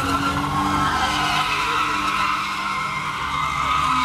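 Car tyres squealing without a break as a car drifts on asphalt in a cloud of tyre smoke, with the engine note running underneath.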